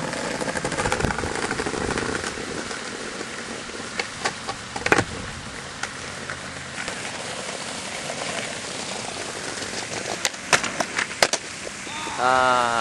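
Skateboard wheels rolling over brick pavers, with several sharp clacks of the board, in two clusters, as it is popped and lands. Near the end a person gives a short rising shout.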